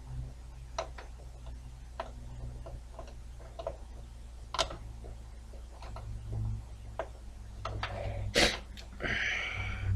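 Scattered small clicks and taps, irregularly spaced, as front-panel USB header cables and connectors are handled and pushed onto a desktop motherboard's pins, the sharpest about eight and a half seconds in, over a low steady hum. A short rustle near the end.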